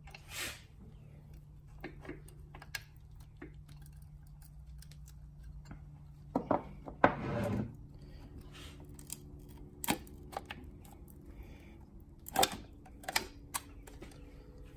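Scattered clicks and knocks of metal being handled as a piston in a ring compressor is worked by hand into a cylinder bore of a Yanmar 3JH3E diesel block. The knocks are loudest about halfway through and again near the end, over a steady low hum.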